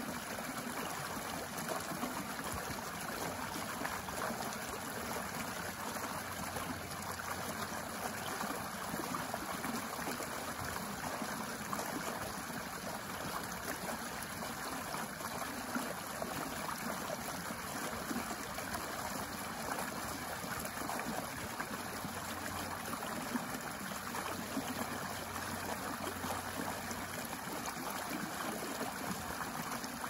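Small shallow stream running steadily, water spilling over a low step of rocks and splashing into a shallow pool.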